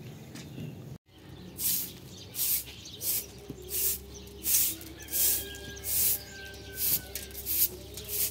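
Straw hand broom sweeping dusty cement ground: about ten brisk swishes, roughly one every two-thirds of a second, starting after a second or so.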